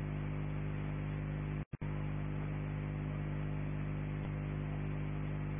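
Steady electrical hum with a faint hiss behind it: the recording's background noise. It drops out to silence for a moment about a second and a half in.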